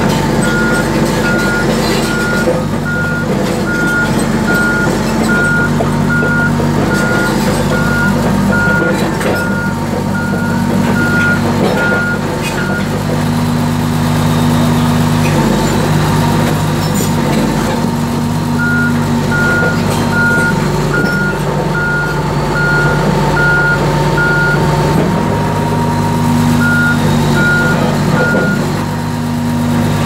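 Komatsu D85EX-15 bulldozer's six-cylinder diesel engine running steadily, its note shifting slightly a few times, while its back-up alarm gives an even series of high beeps, about one a second. The beeping stops about a third of the way in, resumes around the middle, and sounds briefly again near the end.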